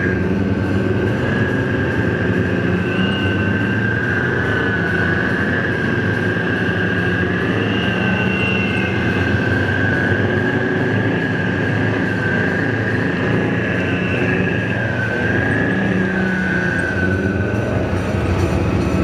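Several Type 74 tanks on the move together, their air-cooled V10 diesel engines running under load, with a high steady whine from the running gear that wavers slightly in pitch and fades near the end.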